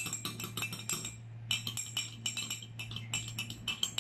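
A spoon stirring liquid in a glass jug, clinking quickly and repeatedly against the glass, with a short break a little past one second in.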